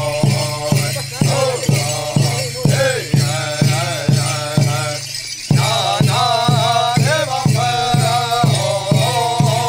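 Hopi dance song: a chorus of voices chanting in unison over a steady hand drum beat, about two strokes a second, with rattles and jingles shaken by the dancers. The chant breaks off for a moment about five seconds in, then picks up again on a held note while the drum keeps going.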